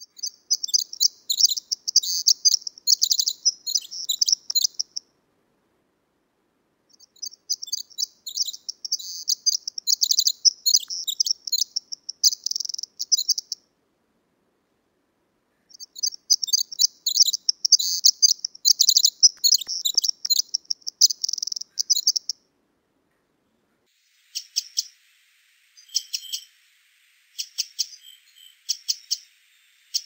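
Pacific wren singing: three long songs of rapid, high trilled notes, each about five or six seconds with short pauses between, followed near the end by a series of short, separate call notes.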